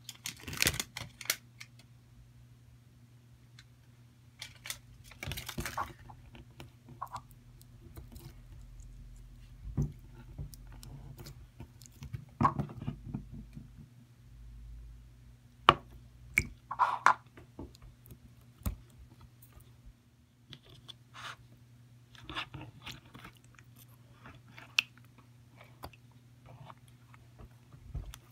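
Slime being squeezed and pressed by hand, giving irregular sticky clicks and small squelching pops. A faint steady low hum runs underneath.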